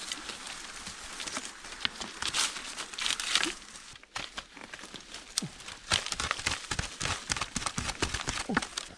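Rustling and crinkling handling noise with many short clicks and snaps, denser in the second half, and a few brief falling chirps.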